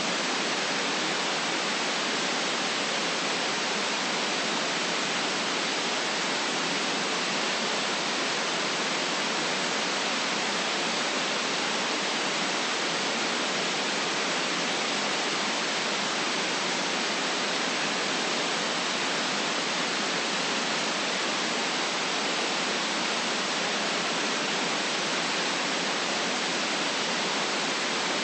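Steady white noise: an even, unbroken hiss that never changes, stronger in the treble, with almost no deep bass.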